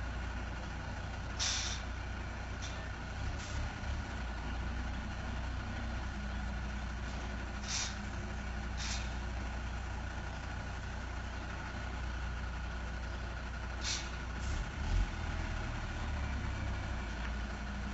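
Heavy tanker truck's diesel engine running low and steady as the truck reverses slowly, with four short air-brake hisses.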